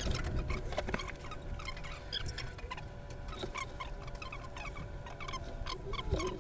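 Bubble wrap and plastic packaging rustling and crinkling as it is handled, with many small crackles and a few light knocks.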